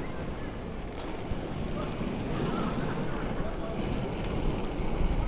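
Steady rumble of inline skate wheels rolling over pavement, mixed with wind buffeting the microphone.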